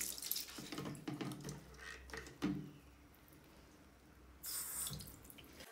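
Bathroom sink mixer tap running in short bursts, water splashing into the basin, with light knocks of things being handled at the sink.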